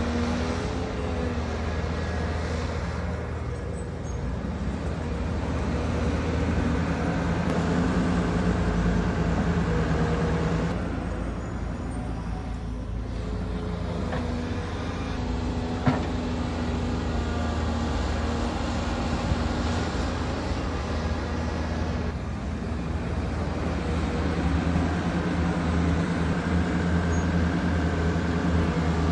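Diesel engine of heavy construction machinery running under varying load, growing louder and quieter every several seconds as it works. A single sharp knock about 16 seconds in.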